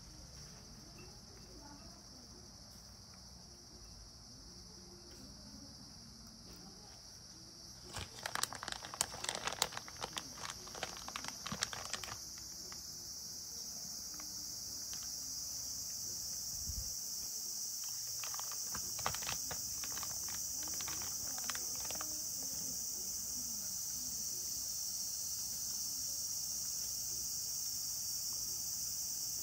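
Cat eating from a ceramic bowl: two spells of quick, irregular chewing clicks, one about eight seconds in and another about eighteen seconds in. A steady high-pitched drone runs underneath and grows louder about a third of the way through.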